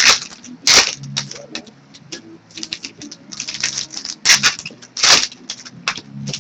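Hands handling trading cards and foil pack wrappers: a busy run of quick clicks and crinkles, with four louder sharp snaps, one near the start, one just under a second in and two more about four and five seconds in.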